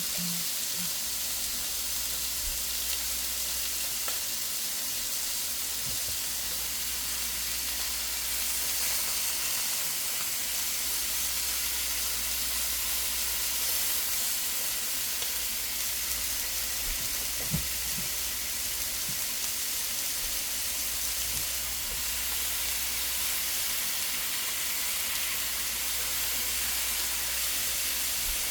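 Food frying in a hot pan: a steady sizzle, with a few faint knocks.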